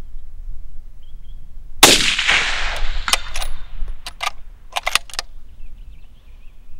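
A single shot from a suppressed 6.5 Creedmoor bolt-action rifle about two seconds in, with a long echoing tail. It is followed by a run of sharp metallic clicks and clacks as the bolt is worked to chamber the next round.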